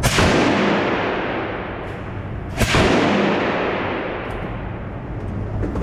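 Two gunshots about two and a half seconds apart, each followed by a long echoing decay.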